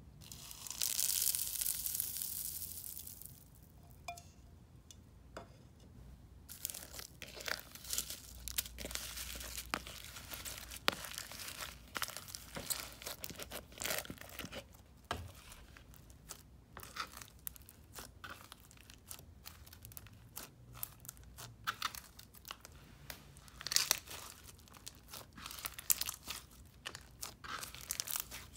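Hands kneading and squeezing floam slime packed with foam beads, making a dense, uneven run of crunching crackles and pops as the beads are squashed. Near the start there is a loud hissing rush lasting about three seconds.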